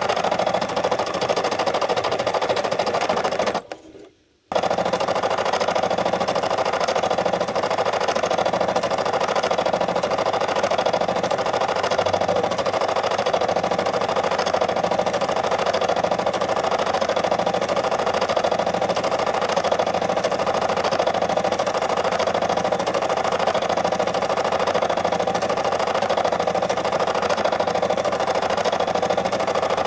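Brother SE600 embroidery machine stitching, a steady, rapid needle clatter. It cuts out for under a second about four seconds in, then picks up again.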